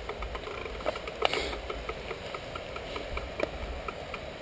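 Bicycle clicking and rattling as it rolls over a rough path onto a wooden-plank footbridge, with irregular knocks and a sharper thump about three and a half seconds in. A low, gusting rumble of wind on the microphone runs underneath.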